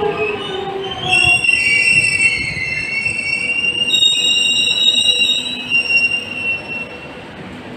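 X'Trapolis 100 electric train slowing: a falling traction-motor whine in the first second or so, then the wheels squeal on the rails in several steady high tones that fade out near the end.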